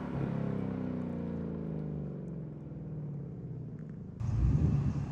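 2022 Mustang Mach 1's 5.0 L V8 exhaust through a Steeda H-pipe and factory active exhaust in normal mode, fading as the car drives away, its note falling steadily in pitch. About four seconds in, a louder, uneven low rumble cuts in abruptly.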